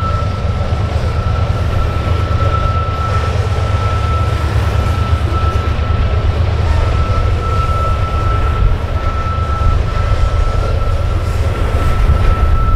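Coal train running by, a steady heavy low rumble with a thin, steady high-pitched tone held throughout.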